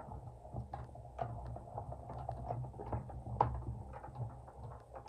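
Hand-cranked mini die-cutting machine rolling a plate sandwich through its rollers as a metal die cuts card stock: a low steady rumble with irregular small clicks and ticks.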